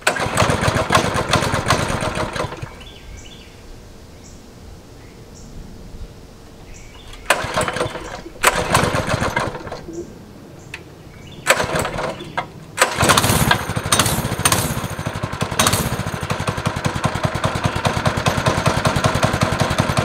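Cold 6.5-horsepower single-cylinder go-kart engine on choke, being started: it runs for about two seconds and dies, fires briefly three more times, then about 13 seconds in catches and keeps running steadily.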